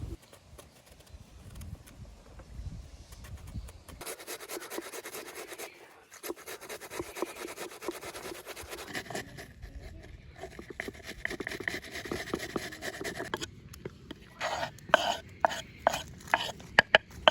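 Fast scraping or rasping strokes for about ten seconds, then a quick run of about ten sharp knocks near the end, like chopping on a cutting board.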